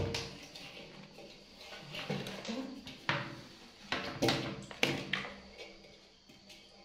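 A string of light knocks and clatters, metal shower head and hose knocking against a large metal basin as a baby monkey grabs at it, spaced about half a second to a second apart in the middle of the stretch.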